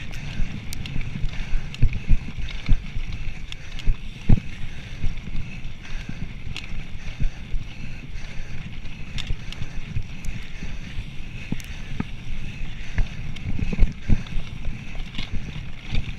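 Mountain bike rolling fast over a rough dirt forest trail: a steady low tyre rumble with wind on the microphone, and frequent short knocks and rattles as the bike hits bumps.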